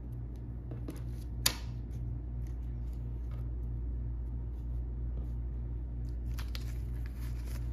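Paper banknotes being slid and shuffled across a wooden table by hand: light paper rustles, with one sharp tap about a second and a half in. A steady low hum sits underneath.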